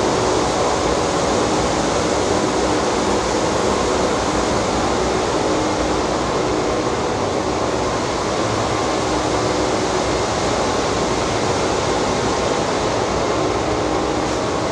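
Steady rushing noise of a water treatment plant, with a faint hum running through it.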